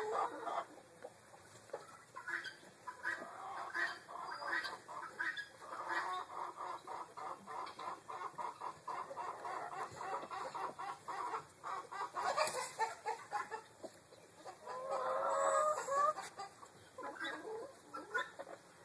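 Chickens clucking in an irregular run of short clucks, with one longer, wavering call about fifteen seconds in.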